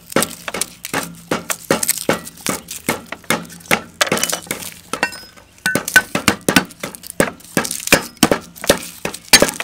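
Cleaver striking garlic cloves on a wooden chopping block, smashing them, with quick, uneven sharp knocks two or three a second and a short lull about five seconds in.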